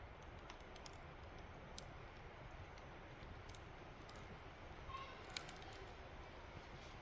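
Wood fire burning a large log, crackling faintly with sparse pops and snaps. The sharpest snap comes about five seconds in, just after a brief squeak.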